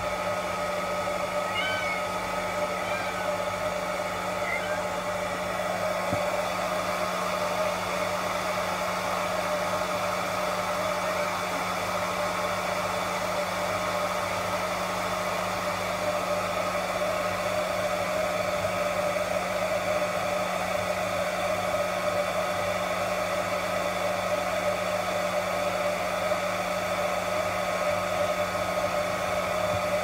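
Hair dryer running steadily with a constant whine while a wet kitten's fur is dried. A few faint cat mews in the first few seconds.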